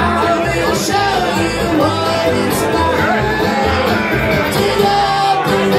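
Live bluegrass band playing: banjo, fiddle, mandolin and acoustic guitar over an upright bass keeping a steady beat.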